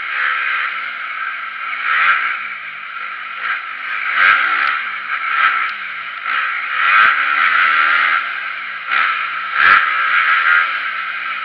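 Motocross dirt bike engine ridden hard around a track, revving up and dropping off again and again. Three sharp knocks come through as it goes.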